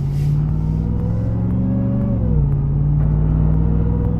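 Ram TRX's supercharged 6.2-litre Hellcat V8 pulling under acceleration. Its pitch climbs slowly, drops about two seconds in as the transmission upshifts, then climbs again.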